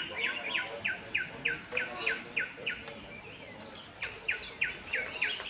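A bird calling in the jungle: a rapid, regular series of short, high notes, each sliding quickly downward, about three a second. The series breaks off a little after halfway and resumes about a second later.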